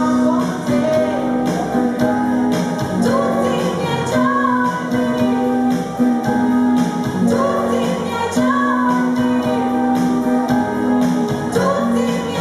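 Live band playing a slow song: a woman singing over an electric guitar, with a held bass line and a steady beat.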